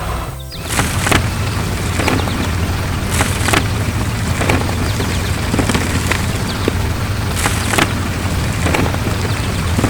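A heavy vehicle engine running steadily as a sound effect, with repeated short hissing or grinding bursts and scattered clatter laid over it.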